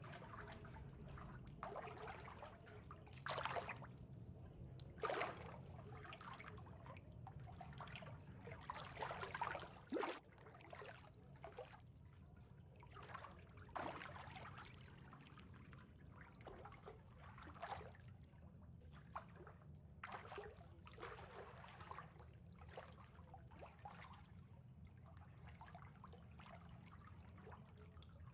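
Faint water ambience: trickling and lapping water with irregular small splashes every second or so, over a steady low rumble.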